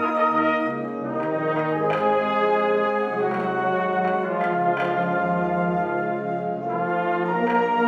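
Brass-heavy ensemble music, the school song played as a virtual recording, moving through sustained chords that change about every second.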